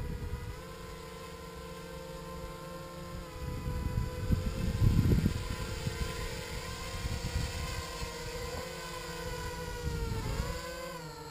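HK 250 quadcopter's electric motors and propellers whining as it hovers. The pitch wavers, then dips and rises again near the end as the throttle corrects. Wind buffets the microphone in gusts.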